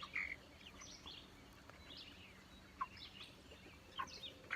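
A flock of six-and-a-half-week-old meat chickens (broilers) giving scattered short peeps and chirps, a few louder ones near the end.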